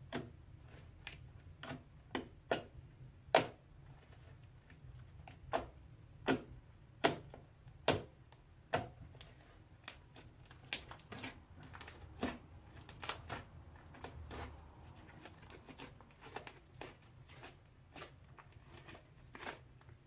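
Thick purple slime being pressed, folded and squeezed by hand, giving a series of sharp, irregular pops and clicks with a few louder ones.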